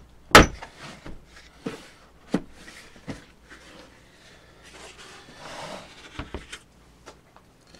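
Hard plastic tap and die set case being handled and opened on a workbench: a sharp plastic clack about half a second in, the loudest sound, then a few lighter knocks, a rubbing shuffle a little past the middle, and several small clicks near the end.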